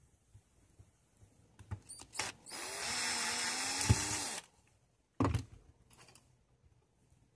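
Hand-held power drill running for about two seconds, boring a hole through a plastic model-car wheel hub with a thin bit: a steady motor whine that stops abruptly after a sharp knock. A short, loud knock follows about a second later.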